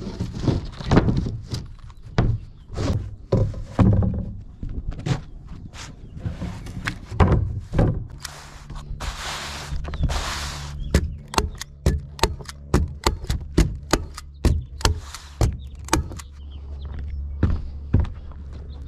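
Footsteps and knocks on a plywood roof deck, with a rasping scrape about halfway through, then a run of quick, evenly spaced knocks.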